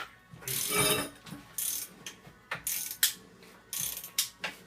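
Socket ratchet clicking in a run of short strokes, about six pulls with brief pauses between, as a bolt is worked loose.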